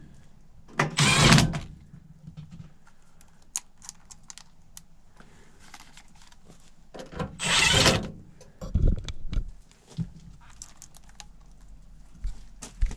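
Work-handling noises: scattered metallic clicks, clinks and knocks, with two loud scraping rustles, one about a second in and one near the eight-second mark.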